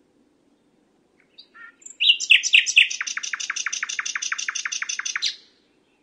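Common nightingale singing: a few soft notes, then a loud phrase that breaks into a fast, even trill of about twenty repeated notes, roughly nine a second, each sweeping down in pitch, before it stops short.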